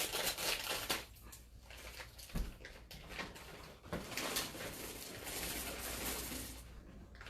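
A plastic bag of chocolate chips rustling as it is handled, with one short knock about two and a half seconds in.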